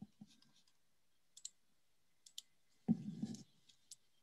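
Faint, scattered clicks of someone working a computer during a pause, over a quiet line. A brief, muffled low sound about three seconds in.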